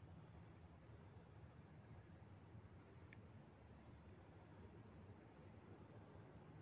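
Faint insects calling outdoors: a high steady trill with a short chirp repeating about once a second. There is a single faint tick near the middle.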